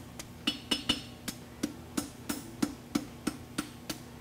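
Hand hammer striking a red-hot bar of concave horseshoe steel on an anvil, steady blows about three a second, forging the heel of a wedge shoe. The first few blows carry a short metallic ring.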